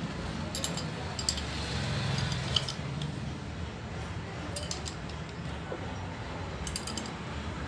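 Light metallic clinks of a spanner working bolts on a submersible motor's metal strip, in about five short groups of clicks, over a steady low background hum.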